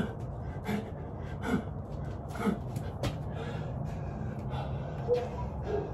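A man breathing hard mid-exercise, with short voiced gasps on the exhale about once a second, then a pause, then two more near the end. Light knocks of body movement sound over a steady low hum.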